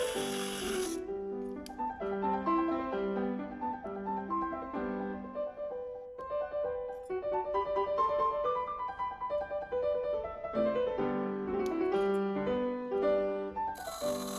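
Solo piano playing a classical sonata movement at a moderate lively tempo, as background music. A loud steady hiss, the machine noise of the turning, runs under it for about the first second, drops out, and comes back near the end.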